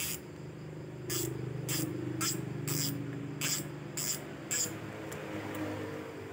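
Daiwa spinning reel worked by hand: about eight short hissing zips, roughly half a second apart, over the first four and a half seconds, with a low hum beneath that fades near the end.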